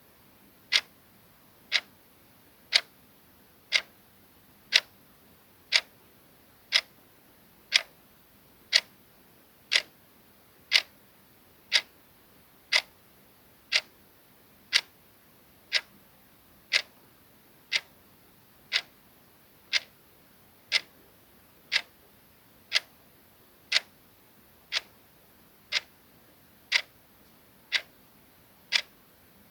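Soft clock-ticking sound effect: one short tick each second, evenly spaced and steady.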